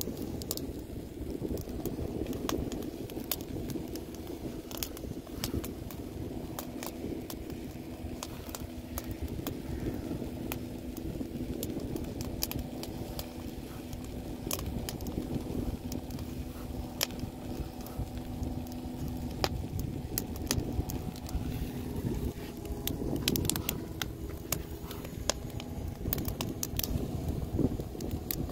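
Wood fire crackling, with frequent sharp pops and snaps over a low steady rumble and hum.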